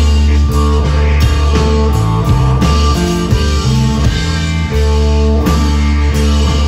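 Rock band playing live: a psychedelic space-rock/stoner passage of guitar notes held and changing every second or so over a heavy, steady bass.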